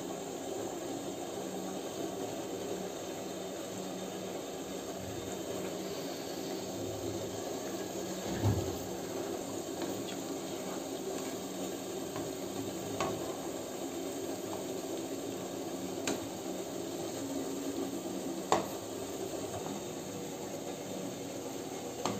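Gulab jamun dough balls sizzling steadily as they deep-fry in hot oil, with a few clinks and knocks of a perforated metal skimmer against the pan.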